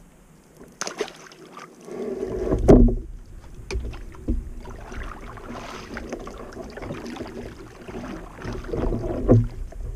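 Double-bladed kayak paddle dipping and pulling through the water in uneven strokes, with the loudest splash about three seconds in. A few light clicks come between the strokes.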